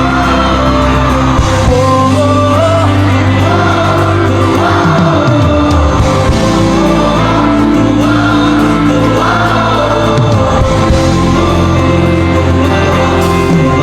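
Instrumental interlude of a Chinese pop ballad: sustained backing chords and bass under a wordless sung 'oh~ ooh~' vocal line.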